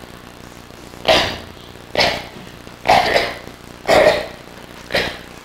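A girl coughing five times, about once a second, each cough short and sharp.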